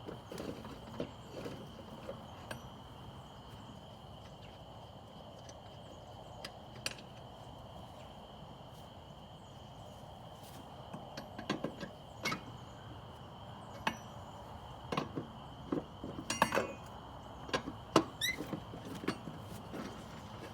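Scattered knocks and clanks from handling a zero-turn mower wheel and its hardware, sparse at first and coming thicker through the second half. A faint steady high-pitched tone runs underneath.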